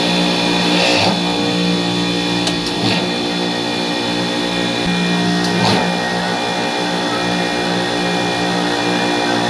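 Supermarket refrigeration rack compressors running with a steady hum of several pitches, with a few brief knocks about one, three and six seconds in.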